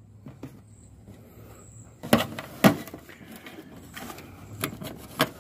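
Irregular knocks and clunks of hands and tools working old boat seats loose, the two loudest about two and three seconds in, with lighter knocks near the end.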